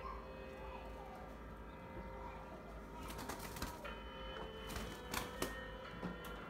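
Rabbits eating lettuce and carrot, with two short runs of crisp crunching clicks, the first about halfway through and the second near the end, over faint bird chirps.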